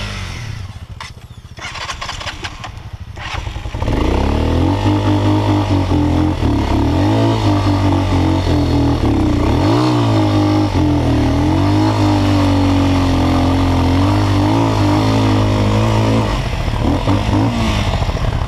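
Single-cylinder dual-sport motorcycle engine pulling up a dirt trail, quiet for the first few seconds, then loud from about four seconds in, its revs rising and falling with the throttle, easing off near the end.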